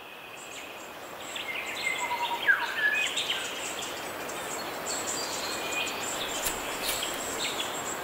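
Outdoor nature ambience: a steady hiss with birds calling, a few short whistles and chirps, one dropping in pitch, busiest a couple of seconds in, and faint high chirping throughout.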